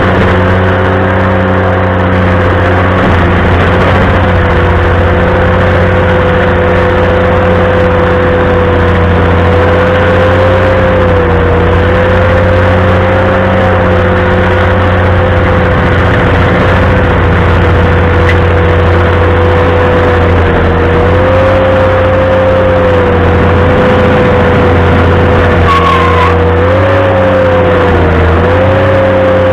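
Ventrac compact tractor running a stump grinder attachment: a steady engine drone under a strong, high, steady whine. The whine dips in pitch briefly a few times, near the middle and again near the end.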